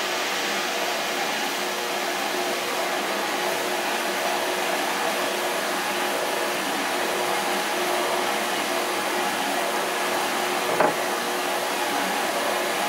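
Steady hissing whir of a running electric appliance with a faint hum under it, and one small sharp clack about eleven seconds in.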